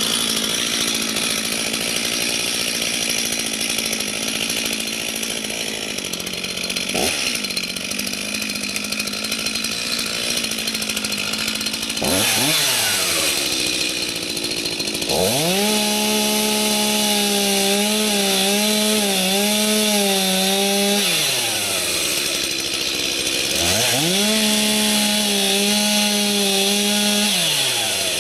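Stihl MS 251 C two-stroke chainsaw idling steadily for about twelve seconds, then revved and held at full throttle through two long cuts into a small tree. Its pitch wavers under load, and it drops back to idle between the cuts and again near the end.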